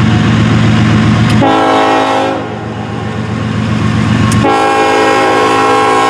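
Diesel locomotive engine running with a low rhythmic rumble. Then the locomotive's air horn sounds: one blast about a second and a half in that fades away, then a second, steady blast starting about four and a half seconds in and held to the end.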